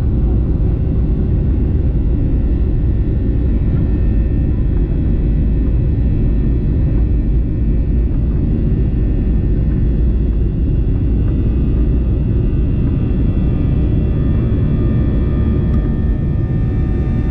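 Cabin noise of a Boeing 737-800 with its CFM56-7B jet engines running: a steady low rumble with faint whining tones above it that grow a little clearer near the end.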